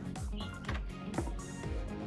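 Background music with a steady beat and deep bass notes that slide down in pitch over and over.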